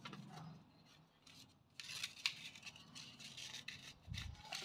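Stiff craft paper rustling and crackling as it is folded, creased and curled by hand, with a soft dull knock near the end.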